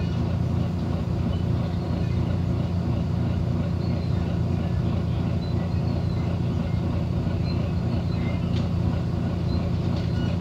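Engine of a Volvo B9TL double-decker bus running, heard from inside the passenger deck as a steady low drone with no changes.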